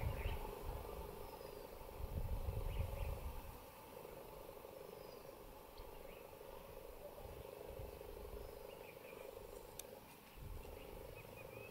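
Faint outdoor ambience: scattered short, high bird chirps over a steady low drone, with gusts of wind rumbling on the microphone near the start, a few seconds in, and again near the end.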